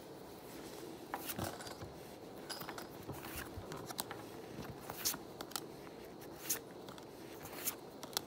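Trading cards being flipped through one at a time: faint soft flicks and slides of card stock as each card is moved to the back of the stack, coming roughly once a second.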